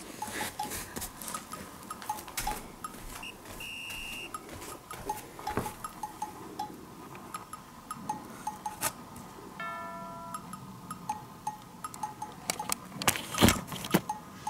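Light, plinky background music with short cowbell- and chime-like notes, mixed with scattered small clicks; a few sharp knocks stand out near the end.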